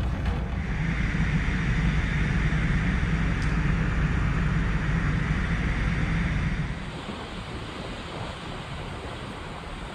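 Wind rushing over the microphone on a ferry's open deck, mixed with the sea and a low steady hum from the ship. The sound drops to a softer rush about seven seconds in.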